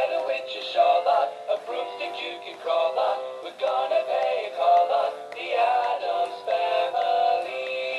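Animated plush Halloween black cat toy playing its built-in song through its small speaker: a high-pitched sung novelty tune over a bouncy backing track.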